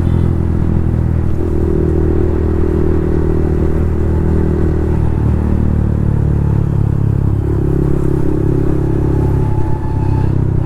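Yamaha MT-15's 155 cc single-cylinder engine running through a loud Akrapovic full-system exhaust while riding, a steady engine note whose pitch shifts in steps a few times.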